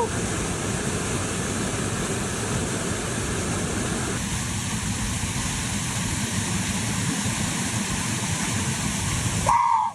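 Waterfall pouring steadily, a continuous, even rush of falling water, its texture shifting slightly about four seconds in. A short voice cry comes just before the end.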